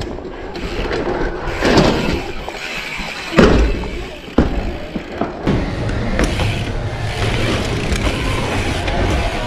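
Commencal Absolut dirt-jump bike rolling over skate-park ramps, its tyres rumbling on the surfaces, with a few hard thuds from landings and wheel impacts. The loudest thud comes about three and a half seconds in. After about five and a half seconds it settles into a steadier rolling rumble.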